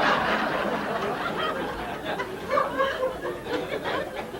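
Audience laughing, the laughter dying down over a few seconds into scattered chuckles.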